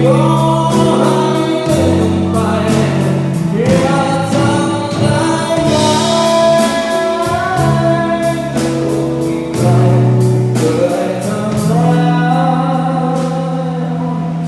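Live band playing a Thai pop-rock song: singing over sustained bass notes and steady drum and cymbal strokes.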